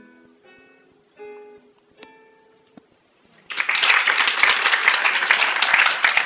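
Guitar playing the last few plucked notes and closing chord of a piece, then audience applause breaking out suddenly about three and a half seconds in and going on, much louder than the guitar.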